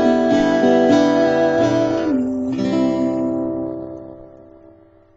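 Acoustic guitar strummed, a chord about every half second, then a final chord about three seconds in left to ring and fade away.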